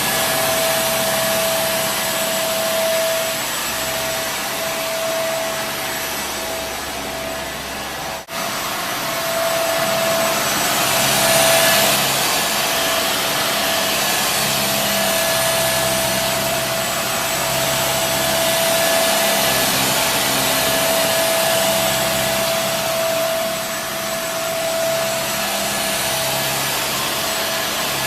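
Kenmore Intuition bagless upright vacuum cleaner running: a steady motor whine over a rush of airflow, the level swelling and easing slightly as it works. The sound drops out for an instant about eight seconds in.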